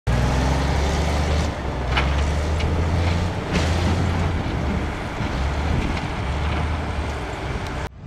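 Heavy earthmoving machine's diesel engine running, a steady low drone, with a few clanks about two and three and a half seconds in.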